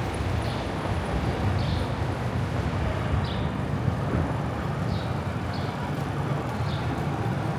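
City street traffic noise: a steady low rumble of passing vehicles, with faint short sounds now and then.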